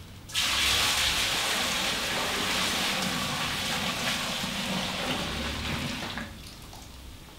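Fermented plum wash poured from a bucket into a copper still's boiler: a steady gushing splash that starts abruptly just after the start and tails off about six seconds in.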